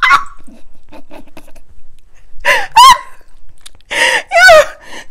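A woman laughing hard: about two seconds of quiet, breathy, near-silent laughter, then high-pitched squealing laughs about two and a half seconds in and again near four seconds in.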